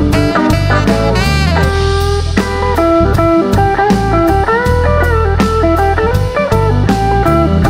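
Live band playing an instrumental passage: tenor saxophone and electric guitar over bass guitar and a steady drum-kit beat, in a bluesy soul-rock style.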